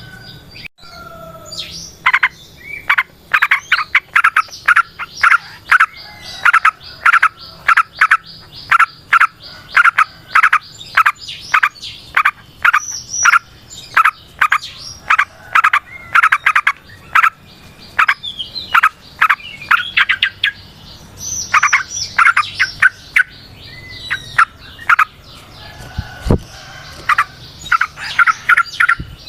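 Yellow-vented bulbul (trucukan) singing its long rolling song: rapid, nearly continuous runs of short sharp chirping notes, broken by a short pause about a second in and another near the end.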